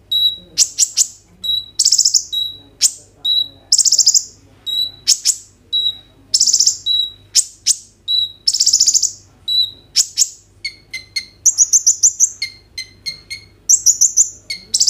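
A purple-throated sunbird (kolibri ninja) singing loudly and without pause: short high notes alternate with harsh buzzy rattles about once a second. After about ten seconds it changes to a fast run of sharp chips.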